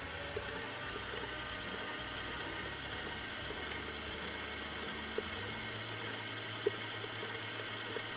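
Electric stand mixer running steadily at a raised speed, beating creamed butter, sugar and eggs for a cake batter, with a few faint clicks.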